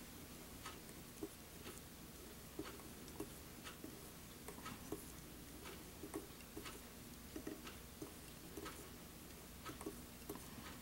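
Faint, irregular small ticks and clicks from fingers handling and wrapping silk floss on a fly-tying hook, over a low steady hiss.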